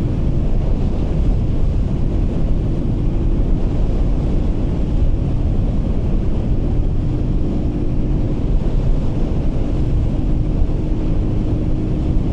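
Heavy wind buffeting a DJI Mic 2 wireless microphone on a vehicle travelling at about 70–80 km/h, a steady loud rumble, with a faint steady engine hum under it.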